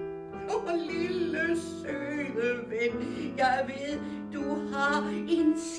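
Singing over instrumental accompaniment, with held notes under a wavering sung line: a revue song performed live.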